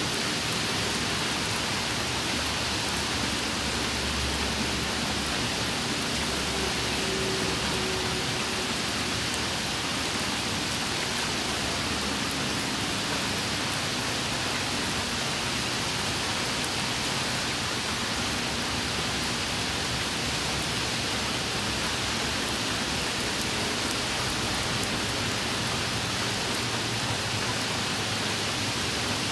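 Steady rain falling on wet pavement and puddles: a continuous, even hiss.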